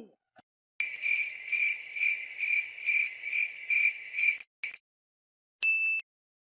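Cricket chirping sound effect, a high steady chirp pulsing about two and a half times a second, cut in and out abruptly. It is followed by a short high beep near the end.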